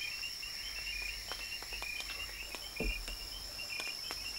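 Night-time rainforest insects: a steady high-pitched drone with a fast, repeating chirp beneath it. Scattered faint clicks and a soft knock about three seconds in.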